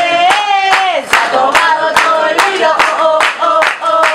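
Voices singing a chant over steady rhythmic hand-clapping, about two to three claps a second.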